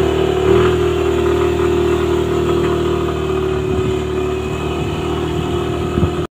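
Motorcycle engine running under way, picking up a little speed about half a second in and then holding a steady drone as the bike cruises.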